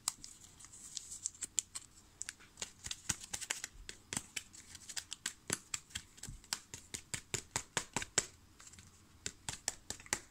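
A trading card being pushed into a stiff plastic card holder: rapid small plastic clicks and scratchy scraping, several a second, as the card is worked down into it.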